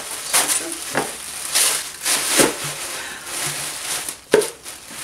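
Gift wrapping paper crinkling and tearing in several uneven rustling bursts as a present is unwrapped.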